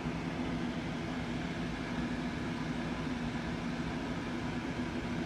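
Steady low background hum with even hiss underneath, unchanging throughout, like a running fan or ventilation unit.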